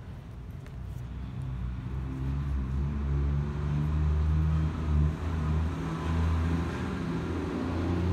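A motor vehicle's engine running, a low steady drone that gets louder over the first few seconds and then holds.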